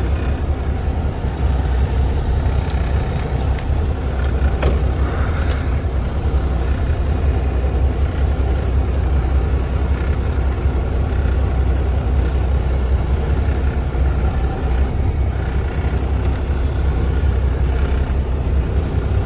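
Peterbilt 362 cabover truck's diesel engine idling steadily, with a few light clicks about four seconds in.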